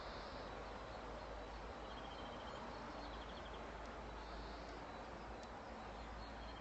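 Faint dawn chorus of distant songbirds over a steady background hiss: a few short, rapid high trills, about two and three seconds in, with a low hum beneath.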